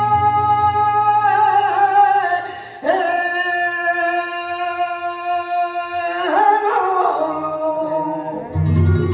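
Flamenco cante: a male singer holds long sustained notes in two drawn-out phrases, then a falling phrase, over flamenco guitar. The guitar comes in louder with chords near the end.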